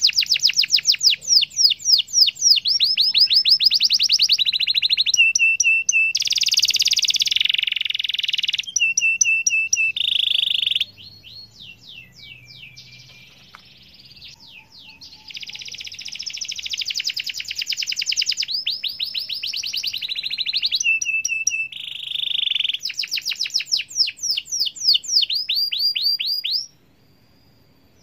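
Domestic canary singing a long rolling song: fast trills of rapidly repeated sweeping notes, buzzy rolls and short held whistles, with a softer stretch in the middle. The song breaks off suddenly near the end.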